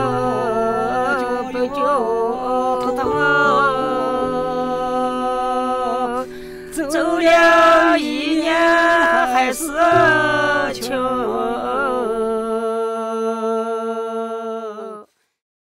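A solo voice sings a folk song unaccompanied, in long, wavering held notes with a low sustained tone beneath. It cuts off abruptly near the end.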